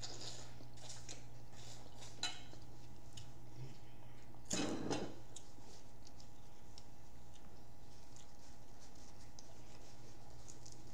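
Quiet eating sounds at a table: scattered light clicks and taps of fork and fingers on a plate and a metal tray, with one brief, louder rustle about four and a half seconds in, over a steady low hum.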